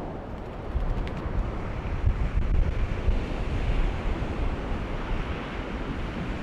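Wind buffeting the microphone over waves washing on the shore, a steady rushing noise that rises and falls, with a couple of faint ticks about a second in.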